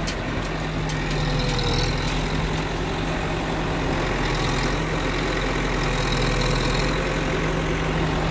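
Diesel engine of an L&T Case backhoe loader idling steadily.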